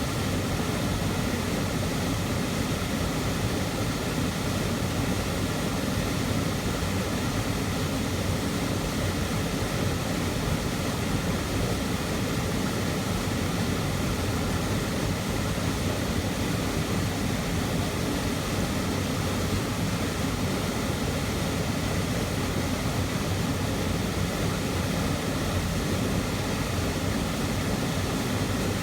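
Loud waterfall heard from right beside it: a steady, unbroken rush of falling water, heaviest in the low range.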